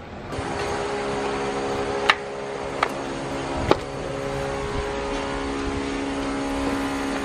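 A steady engine-like drone of several held tones, with three short sharp clicks about two to four seconds in.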